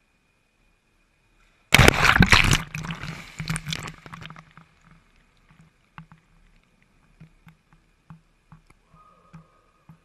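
A wave made in a circular test tank breaking over a floating model: a sudden loud splash about two seconds in that dies away over the next couple of seconds. Scattered drips and small splashes follow.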